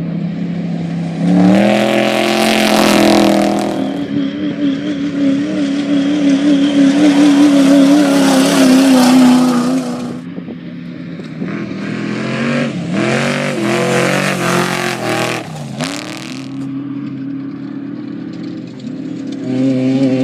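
Off-road race vehicle's engine running hard at speed. Its pitch climbs about a second in and holds high for several seconds, then drops. It surges and dips a few times, steadies, and climbs again near the end as the driver works the throttle and gears, with rushing wind and terrain noise over it.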